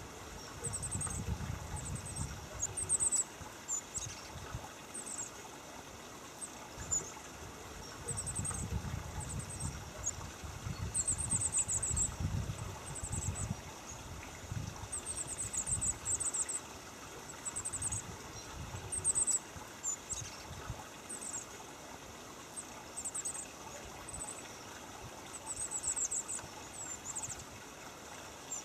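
Goldcrest calling: thin, very high-pitched notes in quick runs of a few at a time, repeated every second or two. A low rumble comes and goes underneath.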